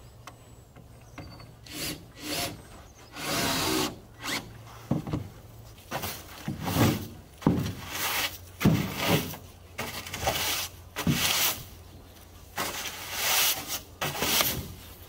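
Stiff wire brush scrubbed in short back-and-forth strokes along the seam between OSB floor panels, about a dozen strokes of uneven length.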